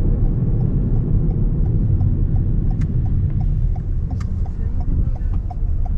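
Steady low rumble of road and engine noise inside a moving car. From about halfway through, a light ticking sets in, about three ticks a second.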